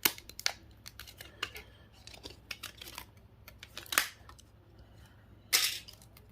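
Small irregular clicks, snaps and scrapes of a tool prying the stainless steel backing off a GPS unit's screen assembly, with a sharp snap about four seconds in and a louder half-second rasp near the end.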